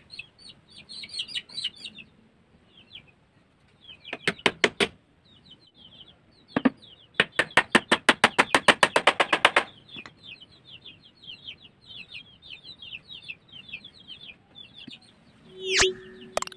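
Quick runs of light hammer taps driving small nails into teak strips, about eight taps a second: a short run about four seconds in and a longer run of some twenty taps in the middle. Chickens chirp steadily in the background. A swoosh and a short tone near the end come from an on-screen subscribe animation's sound effect.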